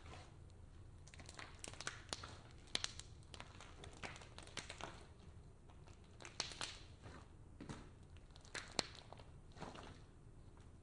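Slime being stretched, squeezed and poked by hand, making faint irregular little clicks and squishes.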